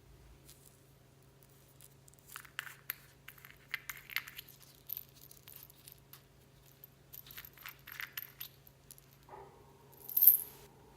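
Clear slime with beads and floam mixed in being worked by hand, giving bursts of crunchy clicking and crackling, with one louder crackle near the end.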